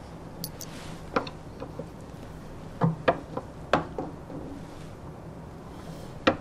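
Scattered light knocks and clicks of hand tools being handled, picked up and set down on a wooden jeweler's bench.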